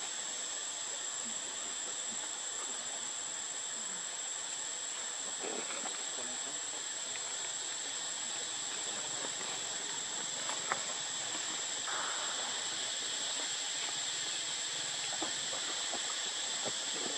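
Steady, high-pitched chorus of insects, most likely cicadas, with a few faint clicks and one sharp tick about ten seconds in.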